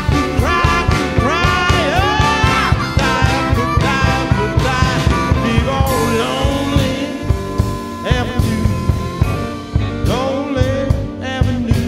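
Blues band playing an instrumental break: drums keeping a steady beat under bass and guitar, with a lead line bending up and down in pitch.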